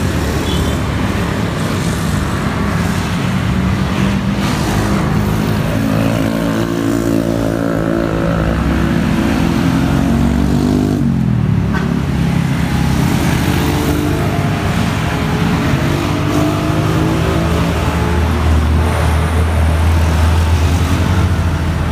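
Road traffic passing close by: car and motorcycle engines driving past. One engine rises in pitch and then drops sharply as it passes about eleven seconds in, and a heavy low engine rumble builds near the end.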